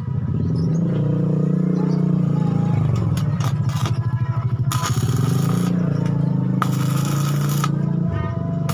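An engine running, its speed rising and falling, with three short bursts of scraping hiss.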